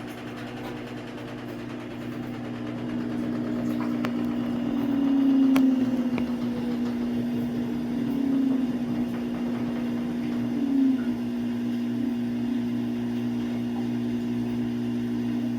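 Samsung AddWash front-loading washing machine spinning, a steady motor-and-drum hum that grows louder over the first few seconds and then holds steady, with a faint whine falling slowly in pitch.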